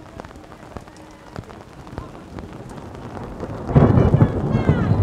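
Rain, with many small drops ticking close to the microphone. About three and a half seconds in, a sudden loud low rumble sets in and keeps going.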